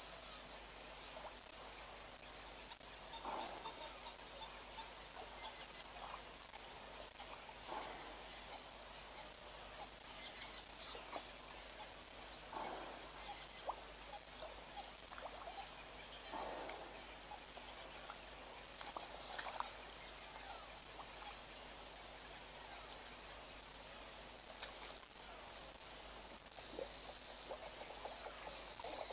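Insect chirping in a steady, even, high-pitched rhythm of about two to three chirps a second.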